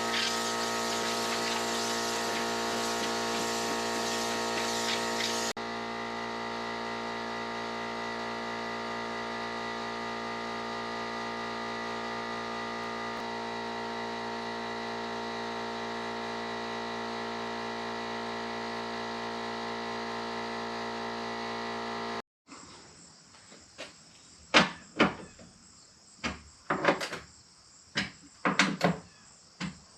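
A steady drone of many held tones that drops a little in loudness about five seconds in and cuts off abruptly about 22 seconds in, followed by a string of sharp clicks and knocks of hardware being handled.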